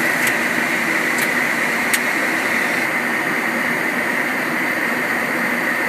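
Steady flight-deck noise of a Boeing 737-800 in flight: a constant rush of airflow, air conditioning and engines with a steady hiss. Three faint clicks come in the first two seconds.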